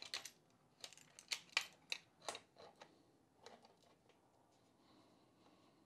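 Light metallic clicks and taps, about a dozen in irregular succession, as locking C-clamp pliers are set on a Porsche G50 pedal cluster to press a pin into the pedal shaft; quiet for the last couple of seconds.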